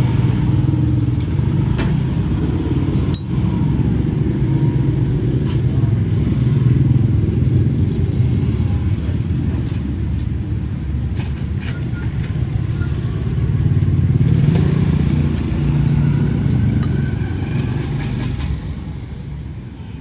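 Steady low noise of passing motorbike and street traffic, with a few sharp metallic clicks from a Zippo lighter's lid and hinge being handled, one about three seconds in as the lid opens.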